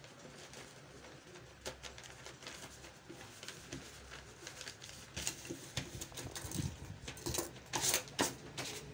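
Brown kraft paper rustling and crackling as hands fold and handle the sheets, the crackles growing louder and more frequent in the second half.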